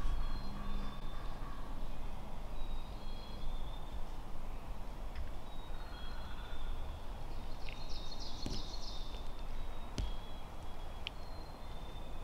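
Forest ambience: thin, high songbird whistles come and go over a steady low rumble, with a brief cluster of chirps about eight seconds in and a few faint clicks.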